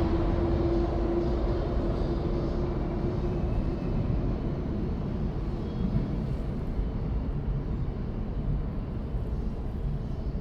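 Underground train's low rumble fading slowly as it moves away, with a steady tone that dies out in the first few seconds.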